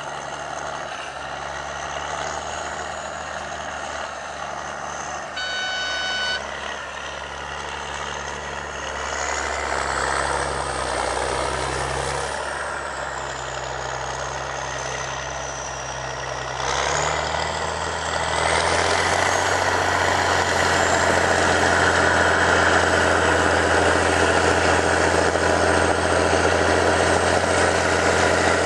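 Heavy diesel engine of a rubber-tracked tractor running steadily as it pulls a plow through soil, getting louder about two-thirds of the way through. A brief beep sounds about five seconds in.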